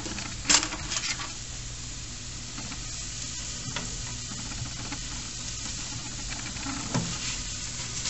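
Breaded fish fillets sizzling in their oil on the hot baking pan, fresh from the end of the toaster oven's bake cycle: a steady hiss, with a few light clicks about half a second in, at one second and near the end.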